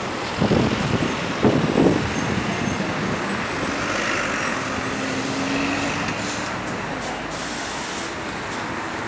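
City street traffic noise: a steady wash of passing road vehicles, with a brief engine hum in the middle.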